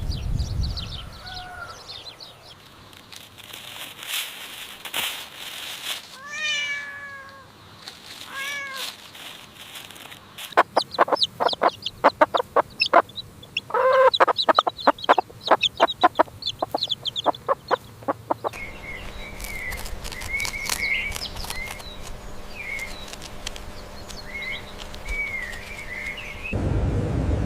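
A string of separate animal calls one after another: two short calls falling in pitch about six and eight seconds in, then several seconds of rapid clicking calls, then repeated high chirps. A louder low, steady sound starts near the end.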